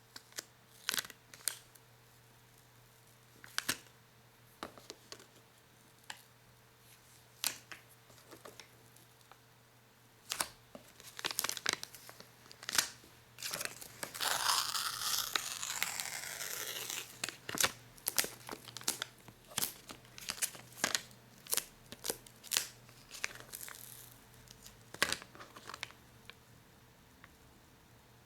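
Sticky material being peeled off a surface by hand, in short crackling pulls. About halfway through comes one longer, continuous peel lasting a few seconds.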